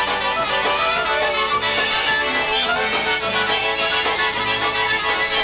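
Polka band playing an instrumental passage, with fiddle and accordion carrying the tune over a steady beat.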